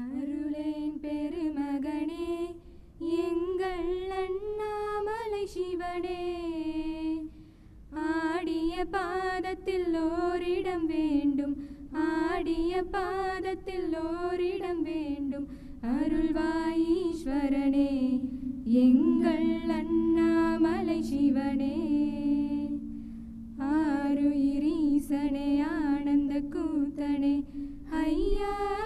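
Three young women singing a song together into podium microphones, in long phrases with brief pauses between them.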